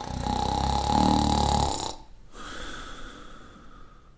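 A person snoring: one long, loud, rattling snore of about two seconds, then a quieter, breathy breath that fades away.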